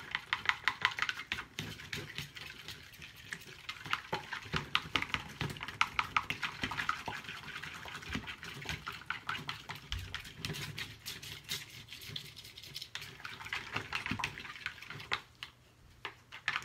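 Thick cold process soap batter being stirred by hand in a plastic pitcher: quick wet scraping and clicking strokes of the stirring utensil against the pitcher's walls, pausing briefly near the end.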